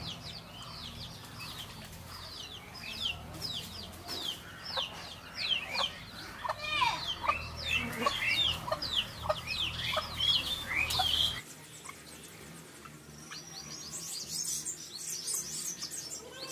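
Chickens calling: a run of short, high, downward-sliding peeps repeated several times a second, with a few lower clucks mixed in around the middle. About eleven seconds in the low background hum cuts out, and higher, quicker chirping carries on.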